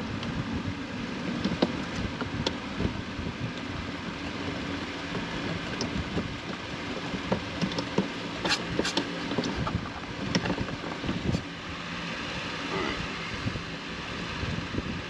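Scattered light clicks and taps of hand work on the steering column, with parts and screws being handled while the replacement shifter's mounting screws are started. A few sharper clicks come near the middle, over a steady background hum.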